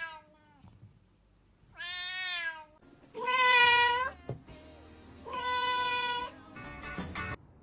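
Domestic cat meowing three times, each a drawn-out meow about a second long, with a shorter ragged sound near the end.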